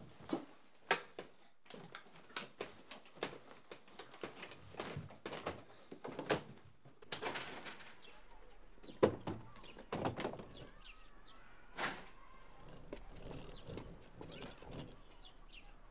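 Clothes and belongings are stuffed into a suitcase, with rustling and a run of quick thumps. A loud thud, like a door, comes about nine seconds in and another about twelve seconds in. After that come quieter footsteps and faint chirps.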